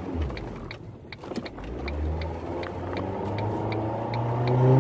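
Car turn-signal indicator clicking about three times a second inside the cabin, over the low hum of the engine, which picks up in pitch and loudness near the end as the car accelerates.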